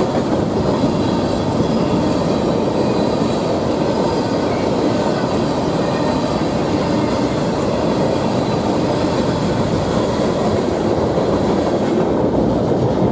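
Freight train of covered hopper cars rolling past, a steady loud noise of steel wheels on the rails. The last cars go by near the end and the higher part of the noise fades.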